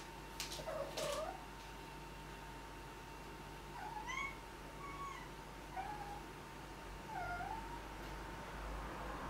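A tabby kitten making a series of short, chirpy 'mrrr' calls while it plays, about six of them, each bending up and down in pitch. Two sharp taps come near the start.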